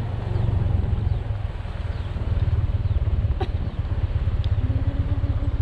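Small motorcycle engine running at a low, steady speed with an even pulsing exhaust note, heard from on the bike. A sharp click sounds about three and a half seconds in.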